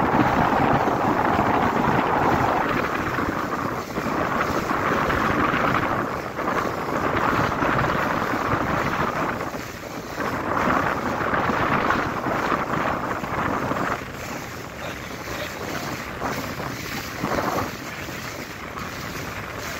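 Small boat under way: its motor and the rush of water against the hull, with wind buffeting the microphone. The sound drops somewhat about two-thirds of the way through.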